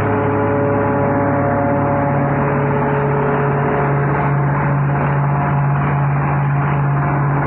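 Diesel engine of a 40 hp wood chipper shredder running steadily at constant speed.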